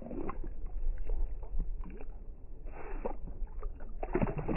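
Water sloshing and splashing in a hole cut in the ice as a largemouth bass is let go and kicks its way down, with a broader splash about three seconds in and another near the end, over a steady low rumble.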